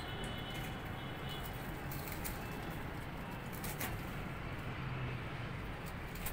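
Domestic pigeons stirring in a wire-mesh loft, with soft wing flutters and a few sharp clicks, one about four seconds in and more near the end, over a steady low hum.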